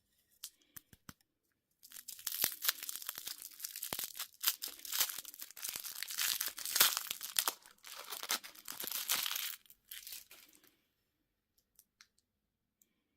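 Candy packaging being torn open and crinkled, a dense crackle that starts about two seconds in after a few small clicks and stops near the end.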